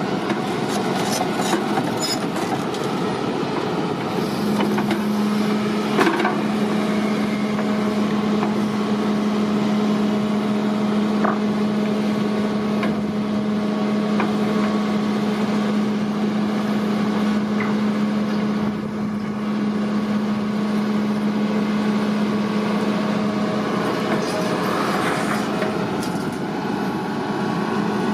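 Excavator rigged as a pile driver at work: steady heavy engine and hydraulic noise with a constant low hum through most of it, and a few separate knocks.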